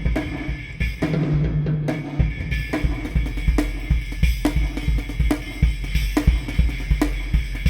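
A small sampled drum kit (bass drum, snare, one tom and a cymbal) playing a fast programmed beat through a reverb plugin, with a tom ringing on for about a second near the start.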